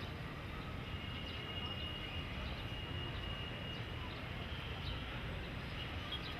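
Street traffic ambience: a steady low rumble of vehicles, with a thin high tone held for about three seconds and a few faint clicks.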